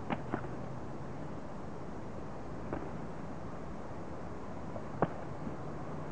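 Padded blows landing in a kickboxing bout, a few short sharp slaps over a steady hiss. Two come in quick succession at the start, one about two and a half seconds in, and the loudest about five seconds in.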